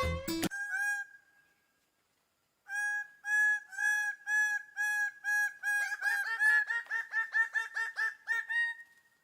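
A bird calling: a string of short, clear notes of one pitch, about two a second, that speed up to about four a second partway through and stop shortly before the end. A single note of the same pitch sounds about a second in, after the tail of an earlier sound.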